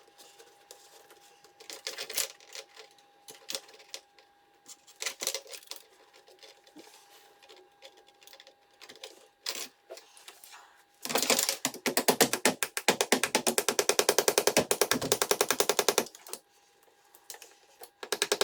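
Scattered clicks and knocks of tools and parts being worked under a truck's hood, then, about 11 seconds in, a loud, fast, even rattle of about a dozen strokes a second that lasts some five seconds and stops suddenly.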